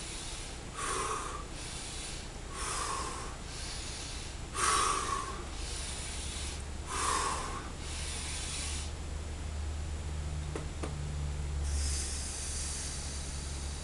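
A man doing rapid Tummo-style breathing: four quick rounds of a breath in and a breath out, about one breath a second, then a pause while the breath is held and a long soft hissing breath near the end.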